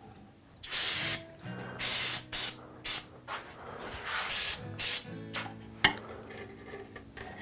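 Aerosol spray can hissing in about six short bursts of varying length. Near the end there is a single sharp tap.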